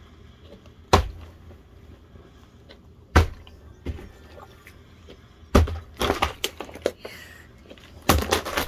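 Partly filled plastic water bottle being flipped and landing with sharp thuds, four of them about two to three seconds apart, with a short clatter of smaller knocks between the third and fourth.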